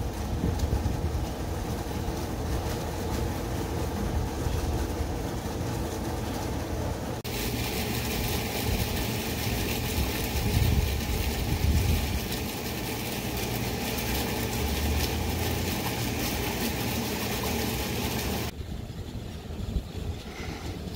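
Steady outdoor background noise in a flooded street, a low rumble with hiss. It changes abruptly twice to a different background as the footage cuts between shots.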